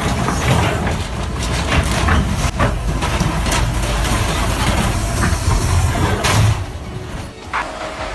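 Heavy machine running under load with many sharp clanks and knocks over a deep engine rumble, cutting off abruptly about six and a half seconds in.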